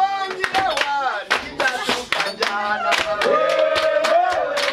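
A group singing and clapping hands in a steady rhythm, with voices calling out over the song; about three seconds in, one voice holds a long note for about a second.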